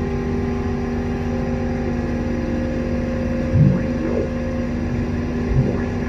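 Synthesizer drone: a steady low rumbling hum built of several held tones, with short deeper swells about halfway through and again near the end.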